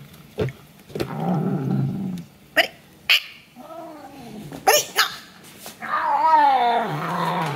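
Bengal cat growling and giving wavering yowls while guarding the corn cob it is chewing, with a few sharp clicks from its teeth on the cob in between; the longest, loudest yowl comes near the end.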